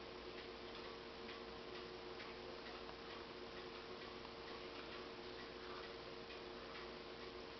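Faint, regular ticking over a steady low hum.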